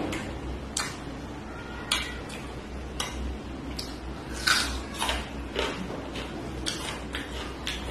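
Eating by hand from a steel plate: fingers mixing rice and curry tap and scrape the plate, with wet chewing and lip-smacking sounds, as irregular short clicks and smacks, the loudest about four and a half seconds in. A steady low hum runs underneath.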